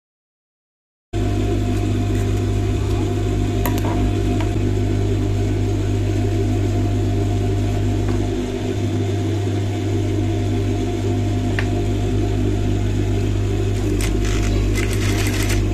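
Industrial flatbed sewing machine running while a strip of fabric is stitched: a steady motor hum that starts suddenly about a second in.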